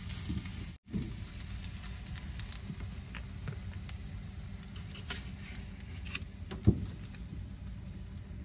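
Silicone spatula scraping cooked rice out of a frying pan onto a paper plate, with scattered light clicks and taps and one sharp knock about three-quarters of the way through, over a steady low hum.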